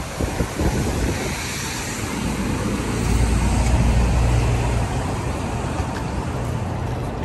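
City street traffic noise, with a low rumble that swells about three seconds in and eases off about two seconds later.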